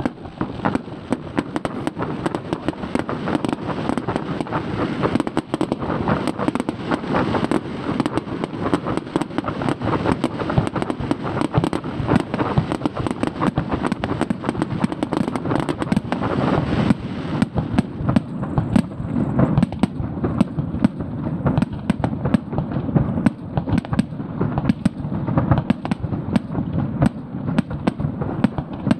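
Aerial fireworks shells bursting one after another in a dense, unbroken barrage of bangs.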